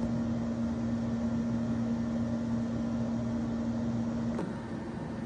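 Steady machine hum with one constant low tone, stopping abruptly with a click about four and a half seconds in.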